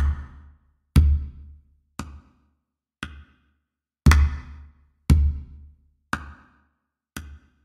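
Music of deep drum hits, about one a second, each dying away before the next; some hits are louder than others.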